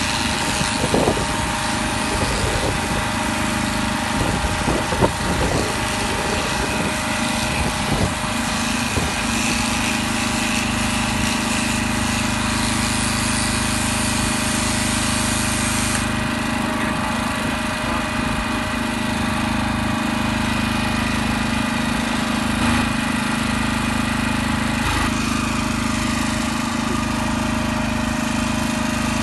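Electric shearing clippers running with a steady hum as they cut through llama fleece, with scattered knocks and handling noises in the first several seconds.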